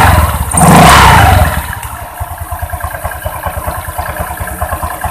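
Honda Vario 125 scooter's single-cylinder engine and open CVT, revved briefly about a second in, then dropping back to a steady, evenly pulsing idle. It sounds smooth, the CVT knock at low rpm having been cured by shimming with a piece of hose.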